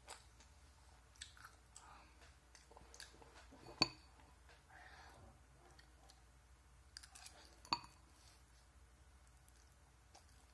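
Faint eating sounds from someone eating instant noodles: small mouth clicks and chewing. A metal fork strikes the ceramic bowl sharply twice, about a third of the way in and again about three-quarters through.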